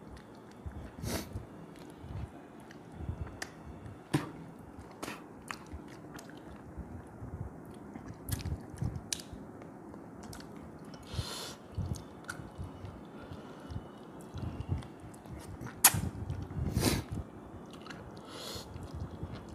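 Chewing and wet mouth sounds of a man eating red snapper head and rice by hand: soft smacks and chews throughout, with scattered short clicks, the sharpest about four seconds and sixteen seconds in.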